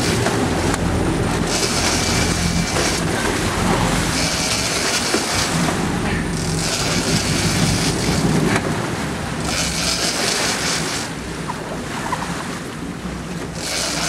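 Boat engine running steadily under rushing wind and sea noise, with a hissy rush that swells and fades in gusts every couple of seconds.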